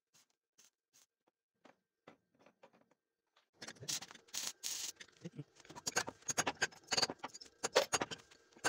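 Metal parts being handled: a threaded steel rod clicking and scraping against a welded steel housing in a vise. A few scattered faint clicks at first, then a dense run of quick clicks and scrapes from a few seconds in.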